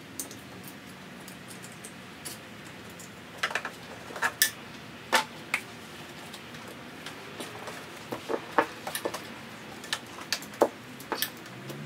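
Irregular sharp clicks and taps of a flathead screwdriver and a metal clamp and C-clip against the plastic OEM charge pipe of a BMW N54 engine as it is worked loose by hand. The clicks come in small clusters a few seconds apart.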